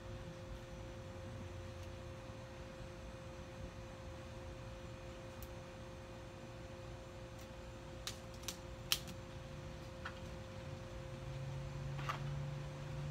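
A few sharp snaps, about eight to nine seconds in and again near the end: rubber bands being stretched and snapped onto a watermelon's rind. A steady two-note hum runs underneath.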